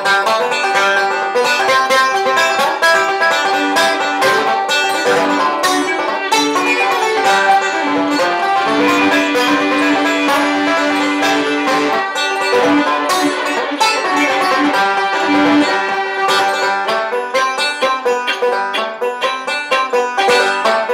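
Banjo music: a quick-picked, bluegrass-style instrumental tune, with many fast plucked notes.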